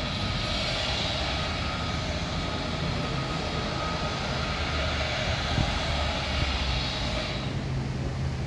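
Pacific National freight train's diesel locomotives running with a steady drone as the train moves away down the line; the higher part of the noise drops off near the end.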